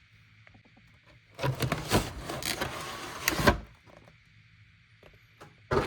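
Shrink-wrapped cardboard card box being handled as the plastic wrap is worked at: crinkling and scraping for about two seconds starting about a second and a half in, then a short burst near the end.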